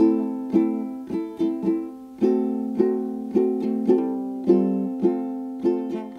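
Background music: a plucked string instrument playing notes and chords about twice a second, each one fading after it is struck.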